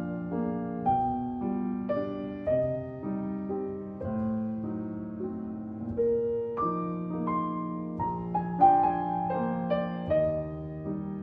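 Solo piano playing a slow, gentle instrumental melody with chords.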